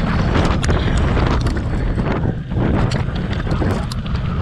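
Wind buffeting the microphone of a handlebar-mounted camera as an electric mountain bike rides over a gravel track, a heavy steady rumble with many small clicks and rattles of gravel under the tyres.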